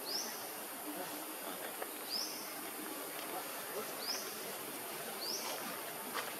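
Outdoor natural ambience: a steady high hiss of insects, with a short high call that rises and then levels off, repeated four times about every one to two seconds.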